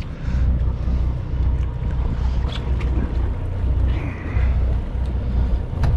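Wind buffeting the microphone on an open boat at sea, an uneven low rumble over the wash of the sea, with a few faint clicks.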